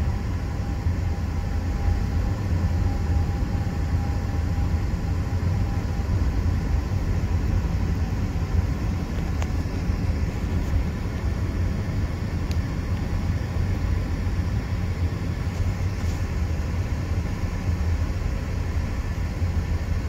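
Steady low rumble of road and tyre noise inside the cabin of a moving Mazda CX-30, with the engine turning at low revs.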